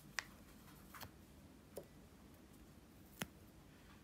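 Four short, sharp clicks spread over a few seconds, over near silence, as hard slabs of dried mochi (rice cake) are snapped into pieces by hand.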